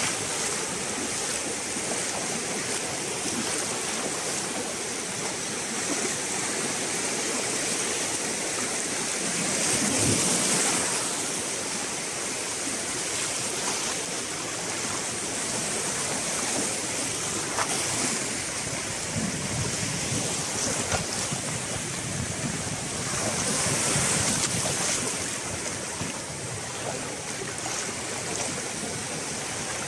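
Small surf breaking and washing in over sandy shallows, a steady rush of water that swells louder twice, about ten seconds in and again near the end.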